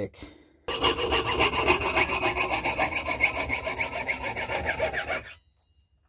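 A hand saw cutting rolled silver sheet with quick, even back-and-forth strokes. It starts under a second in and stops suddenly about a second before the end.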